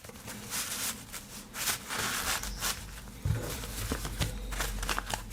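A wallet and a thin card being handled: the card slid into a wallet slot, with rustling, scraping and small irregular clicks.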